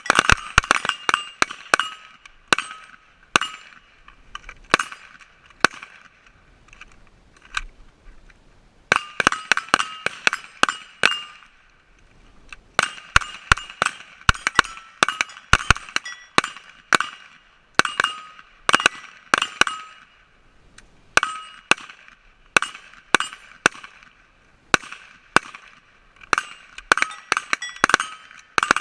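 Repeated bursts of sharp metallic clinks, several in quick succession, each leaving a short ringing tone at the same few pitches, with brief pauses between bursts.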